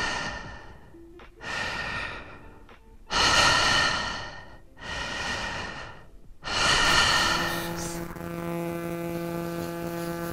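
A person breathing heavily: about five sharp, gasping breaths, each fading away over about a second. A steady low drone of several held tones follows from about seven and a half seconds in.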